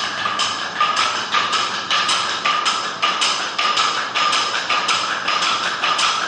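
Chenda melam: an ensemble of Kerala chenda drums being beaten in a fast, dense roll, with loud accented strokes about two to three times a second and a steady ringing tone carried over it.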